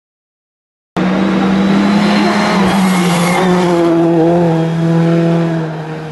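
Rally car engine running hard at steady high revs through a bend, with tyres squealing, starting suddenly about a second in after silence. It drops away near the end as the car pulls off.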